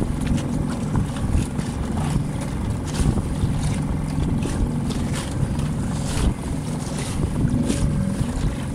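Outboard motor running steadily on a small boat under way, with wind buffeting the microphone and repeated short knocks.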